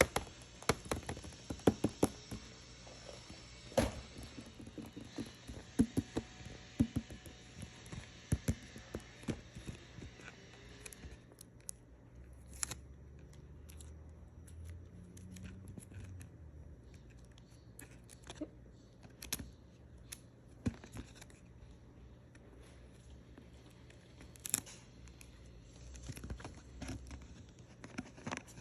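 Boxed doll packaging being handled and opened: quick clicks, taps and knocks of cardboard and plastic, thick for about the first ten seconds and sparser after.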